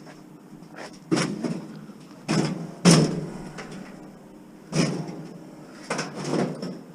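Five separate knocks and bangs, each with a brief ring after it, the loudest about three seconds in.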